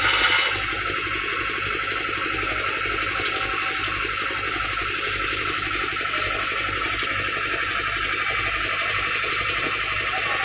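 Hydraulic excavator's diesel engine running steadily close by, a continuous rushing rumble, with a brief louder burst right at the start.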